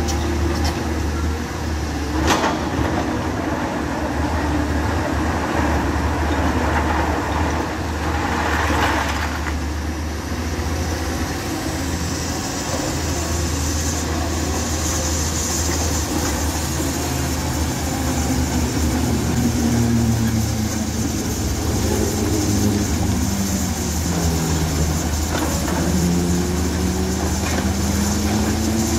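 Hyundai crawler excavator running and working, a steady low diesel drone under load. About two seconds in there is a sharp knock, and around eight to nine seconds a short rush of noise. In the second half a whine dips and rises in pitch as the machine works.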